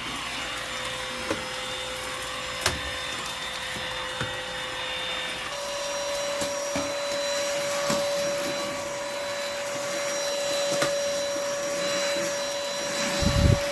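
Dibea D18 cordless stick vacuum running with a steady motor whine that steps slightly higher in pitch about five and a half seconds in. There are a few sharp clicks along the way and low bumps near the end.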